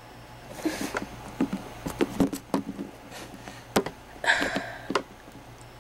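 Handling noise from a small plastic Littlest Pet Shop toy figure moved by hand close to the camera: scattered clicks and light taps with soft rustling, and a short breathy noise about four seconds in.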